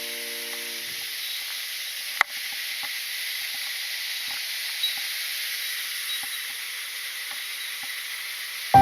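Steady rushing hiss of a small waterfall's falling water, with a single sharp click about two seconds in.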